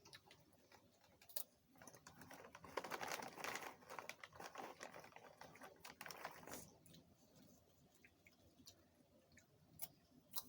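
Small eating and food-handling noises: a dense run of soft clicks and crinkly rustles for a few seconds in the middle, then a few scattered single clicks.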